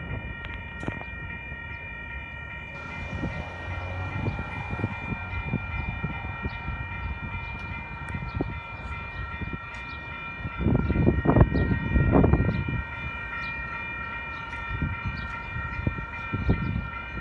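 Railroad grade-crossing warning bells ringing without a break, a steady high ringing of several tones, signalling an approaching train. Gusts of wind rumble on the microphone about ten to twelve seconds in.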